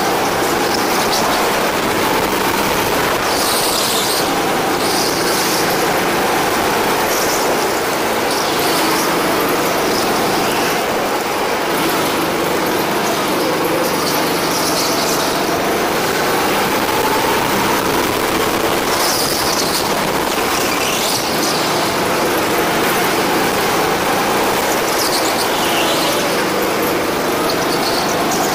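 Go-kart engine heard from on board, running hard and rising and falling in pitch as the kart accelerates and brakes around the track. Short squeals come every few seconds, typical of tyres scrubbing through the corners.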